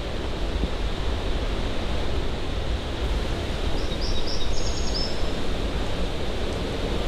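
Waterfall: steady rushing of falling water. A short burst of high chirping calls cuts through about four seconds in.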